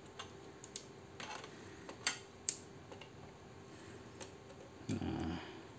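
Scattered small metallic clicks and ticks of a screwdriver and screws being worked loose from a Tally T5040 passbook printer's frame, the sharpest two about half a second apart near the middle. A brief louder, lower sound comes near the end.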